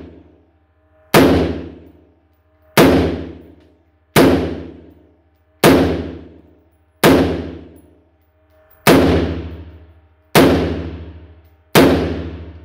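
AR-15-style semi-automatic rifle fired eight times at a slow, steady pace, about one shot every one and a half seconds. Each report rings on in a long echo off the walls of an indoor shooting range.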